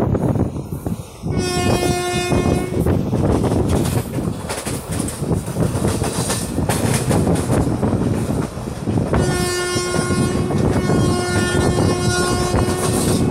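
A train horn, steady in pitch, sounds three times: one short blast about a second in, then two longer blasts close together near the end. Under it runs the steady rumble and rattle of a passenger coach moving fast on the rails, with wind at the open door.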